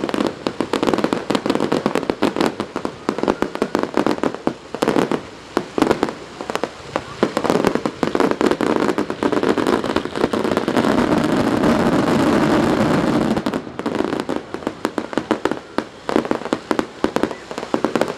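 Fireworks going off in rapid succession: many sharp bangs and crackles. About ten seconds in they merge into a dense, continuous crackle for a few seconds, then thin out again.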